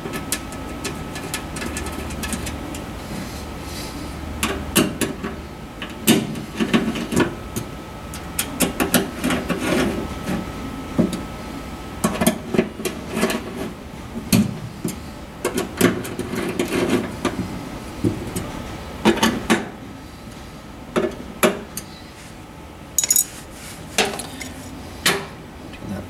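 Irregular small metallic clicks, taps and clinks of a hand tool and socket cap screws against the laser cutter's steel control panel as the screws are tightened, coming in short runs.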